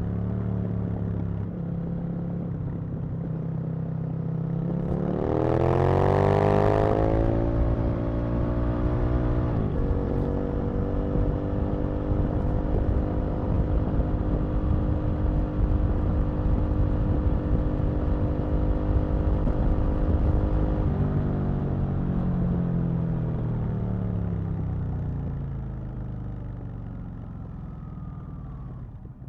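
Aprilia RSV Mille's V-twin engine under way: the revs climb about five seconds in, drop with a gear change near ten seconds, hold steady, then fall away over the last third as the bike slows.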